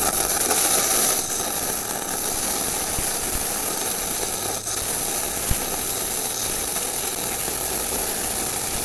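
Gasless flux-cored MIG welding arc running a bead on 30 mm steel plate, fed by a TOPGUN MIG 315VS set to about 150 A and 19.5 V: a steady, even hiss.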